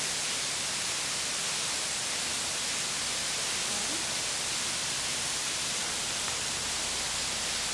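Steady, even hiss with no other sound, typical of a camcorder's own microphone noise in a quiet dark place.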